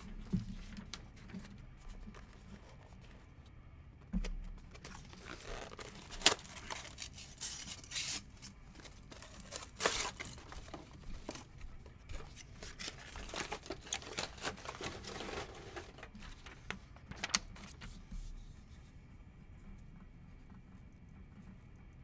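Paper being handled, crinkling and tearing in a run of rustles with a few sharp snaps, most of it in the middle of the stretch and quieter toward the end.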